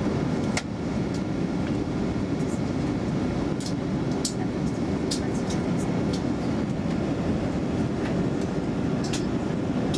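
Steady cabin noise inside an Airbus A320 on descent: a continuous low rumble of engines and airflow, with a few light clicks scattered through it.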